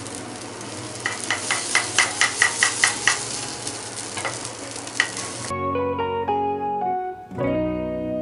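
Batter sizzling in a hot nonstick frying pan while a metal spatula taps and scrapes the pan to shape it, with quick clicks of about three or four a second between about one and three seconds in. The sizzle cuts off suddenly about five and a half seconds in, and plucked guitar music follows.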